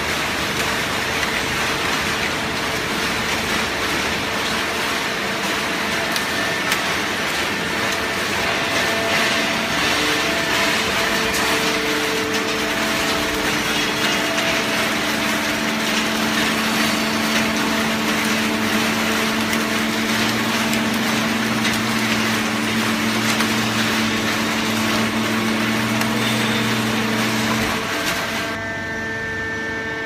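Automatic hydraulic baler running, a steady mechanical noise with a hum running through it. A deeper hum comes in around the middle and stops shortly before the end.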